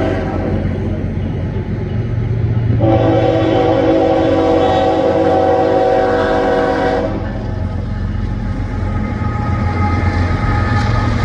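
Diesel freight locomotive's air horn: one blast ends just after the start, then a long blast sounds from about three to seven seconds in, over the steady low rumble of the lead GE ES44AC locomotive's engine as the train approaches and comes onto the bridge.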